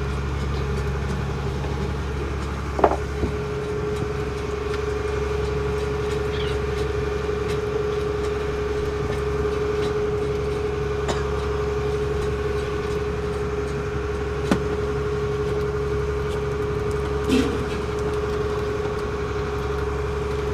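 Fishing boat's engine running steadily, with a higher steady hum setting in about three seconds in and a few sharp knocks.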